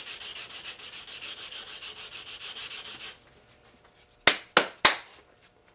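Quick back-and-forth hand sanding with 180-grit sandpaper over putty-filled seams on a plastic scale model, about five strokes a second. It stops about three seconds in and is followed a second later by three short, sharp knocks.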